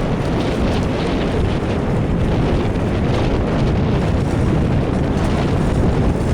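Steady wind buffeting the microphone over the low rumble of a fishing boat under way.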